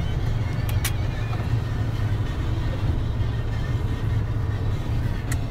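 Steady low rumble of a Mercedes-Benz Actros truck running, engine and road noise heard inside the cab, with two sharp clicks, one about a second in and one near the end.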